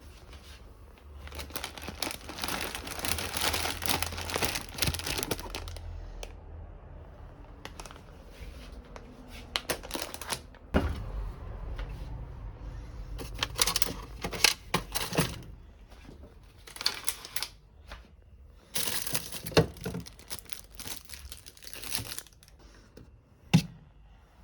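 Packaging crinkling as it is handled, in several bursts, with a couple of sharp knocks.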